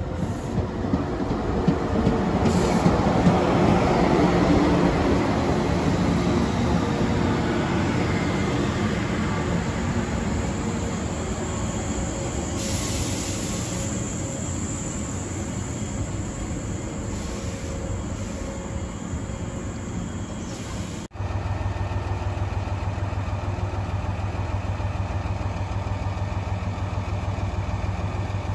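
An old red-and-cream 413 and 455 series electric train passing, its wheels rumbling over the rails, growing louder over the first few seconds. About 21 seconds in the sound cuts abruptly to an Echigo TOKImeki diesel railcar idling steadily.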